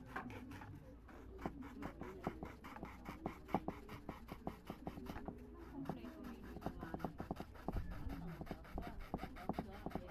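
A thin metal blade scraping and scoring a sheet of painted tin in quick, short, irregular strokes.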